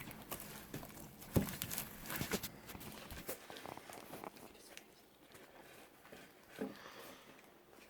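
Handling noise: scattered small clicks and taps from hands working homemade slime, busiest in the first three seconds, then sparser and quieter.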